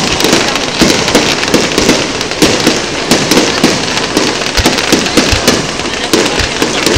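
Fireworks display: a dense, continuous volley of loud bangs and crackles, several reports a second, as aerial shells burst overhead.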